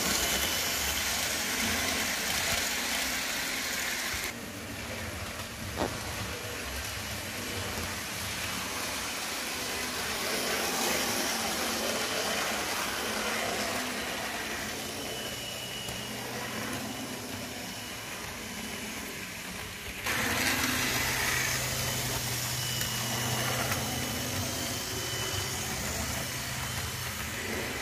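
HO-scale model trains running on the layout: a steady low motor hum with the rolling hiss of wheels on the rails. The sound drops abruptly about four seconds in and comes back louder about twenty seconds in, with a single sharp click near six seconds.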